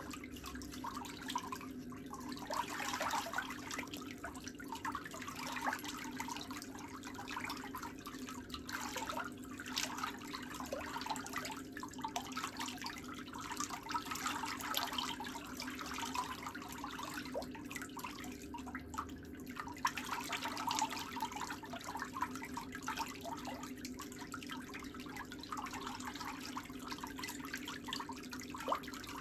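Close-up scraping and rubbing of pedicure tools on a big toenail, irregular and scratchy: a buffer block sanded across the nail, then a small instrument working along the nail edge. A steady low hum runs underneath.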